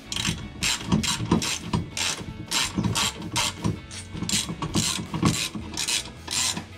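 Hand socket ratchet clicking in repeated short strokes, a few a second, as it runs a bolt into a running board mounting bracket under the truck's cab.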